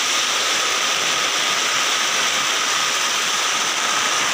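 Heavy rain pouring steadily onto a flooded concrete yard and plants, a dense, even hiss.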